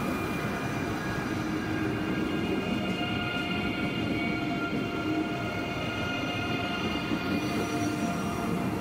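Deutsche Bahn ICE high-speed electric train rolling slowly past over the points: a steady rumble of wheels on rail with several high steady tones whining over it.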